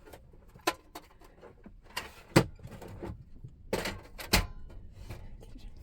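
A handful of sharp knocks and clunks inside a van, about five in all, the loudest about two and a half seconds in and again near four and a half seconds in.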